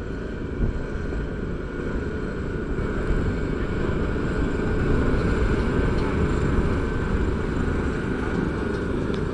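Heavy road-paving machinery running steadily: the diesel engines of an asphalt paver, a dump truck tipping asphalt into it and a backhoe loader, heard as a constant low rumble with a faint steady high tone, growing a little louder about midway.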